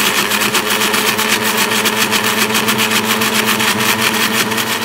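Electric blender running steadily at full speed, whipping instant coffee, sugar and water into dalgona foam.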